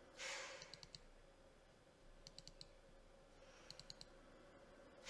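Faint computer mouse clicks in three quick clusters of double-clicks, about a second, two and a quarter and three and three-quarter seconds in. Just before the first cluster there is a short, soft rush of noise.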